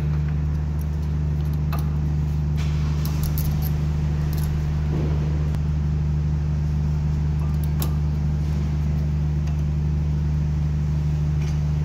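Steady low machine hum, with a few faint metallic clicks as new brake pads are fitted against the disc in the caliper carrier.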